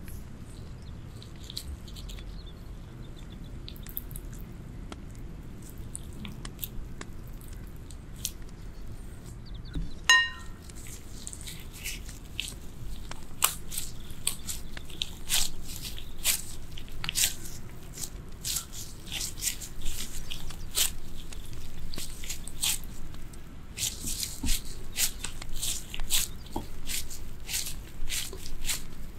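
Latex-gloved hands squeezing and pressing sticky cooked rice into a ball: a dense, irregular crackly squish of rice and glove, busier after the first third. About a third of the way in there is one sharp knock with a short ringing tone.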